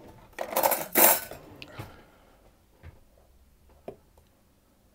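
A utensil stirring baking powder and salt through dry flour in a mixing bowl: two short bursts of stirring in the first second and a half, then a few light taps against the bowl.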